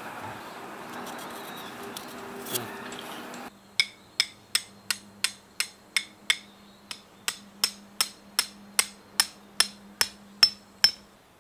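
Steady background noise, then from about three and a half seconds in a tent stake is driven into the ground with a hammer. The strikes come at about three a second, each with a short ring, with one brief pause partway through.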